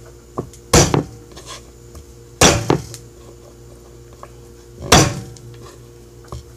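Garlic cloves being crushed under the flat of a chef's knife blade struck by hand on a wooden cutting board: three sharp thumps, roughly two seconds apart, with small knife-and-board clicks between.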